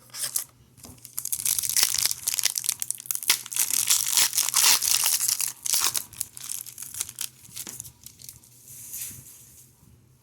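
A trading-card pack's wrapper being torn open and crinkled, a dense crackly rustle made of many quick crackles that fades out near the end.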